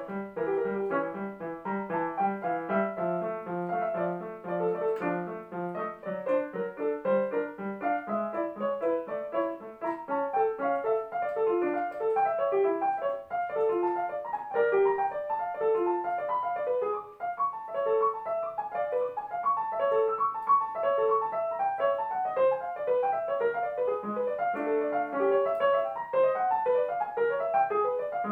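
Digital piano playing a classical solo piece, with fast running passages of short notes throughout.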